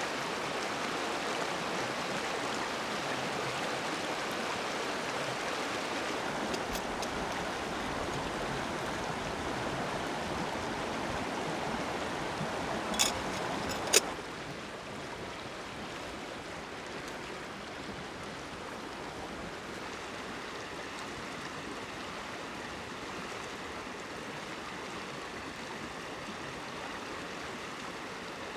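Steady rushing of a flowing stream. Two sharp clicks about halfway through, the second louder, after which the rushing continues more quietly.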